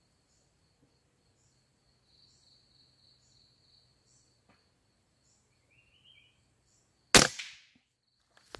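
A single sharp shot from a scoped rifle about seven seconds in, fired at a small perched bird, with a short ring-out after it. Before the shot there is only a faint, steady high-pitched trill in the background.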